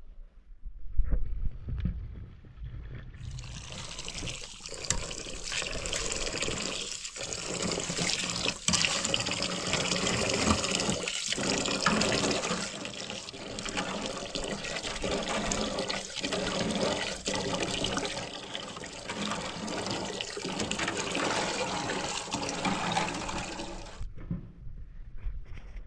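Water running or pouring in a steady stream. It starts suddenly about three seconds in, keeps going for about twenty seconds, and cuts off abruptly near the end.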